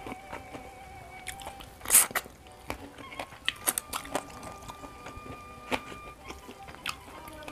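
Close-up eating sounds of someone eating with their fingers: wet chewing, smacks and small clicks, with one louder crackling burst about two seconds in. Soft background music with long held notes plays underneath.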